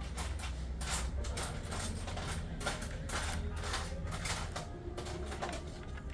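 Screwdriver undoing the screws in a Bluetooth speaker's plastic casing: a run of short clicks and scrapes, several a second and unevenly spaced, over a steady low hum.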